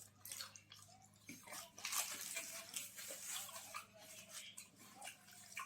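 Wet chewing and mouth sounds of people eating puri with chole curry: irregular small smacks and clicks.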